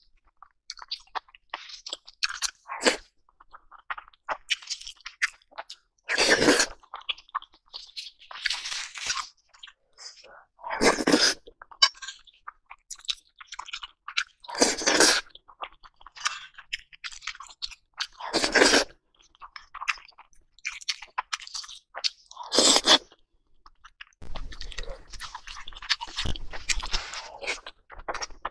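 Close-miked chewing of spoonfuls of rice in gravy: a run of small wet crackles and clicks, with a louder burst every four seconds or so.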